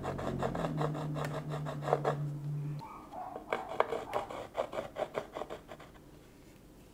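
Red crayon scratching short, quick strokes across a painted panel, about five a second, pausing briefly around three seconds in, then more strokes that fade out. A low hum sits under the first half.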